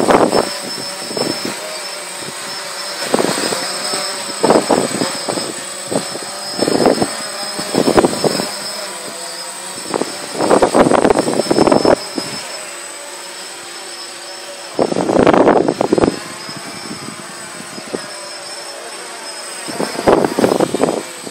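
Quadcopter drone flying overhead: the steady, pitched buzz of its four propellers, broken by about seven irregular loud rushing bursts on the microphone.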